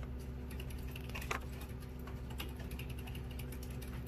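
Computer keyboard typing: scattered, irregular key clicks over a steady low hum.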